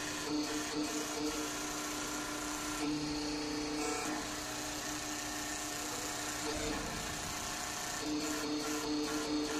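Hydraulic press's electric pump motor running with a steady hum, fading for a few seconds in the middle and returning strongly near the end.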